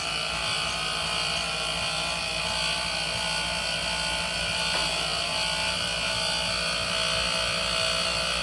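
Wahoo Kickr smart bike trainer running steadily, giving a continuous high whine over a low hum: the unwanted noise its owner is showing as a fault.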